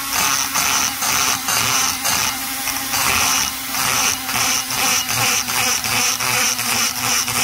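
High-speed rotary grinder with a small burr cutting the intake port of an Echo CS-670 chainsaw's aluminium cylinder, in short passes that break off and resume several times a second. The burr is roughening the roof of the port on purpose, cutting small grooves into it.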